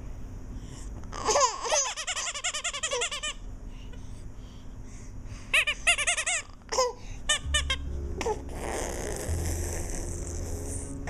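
Baby giggling in two bursts of rapid, high-pitched laughs, about a second in and again around six seconds in. A steady low hum with hiss comes in during the last few seconds.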